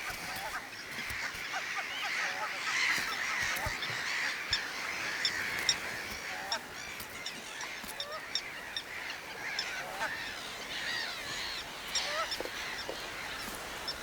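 A mixed breeding colony of common terns and gulls calling all at once, a dense screaming din of many overlapping short, harsh calls from adults and chicks.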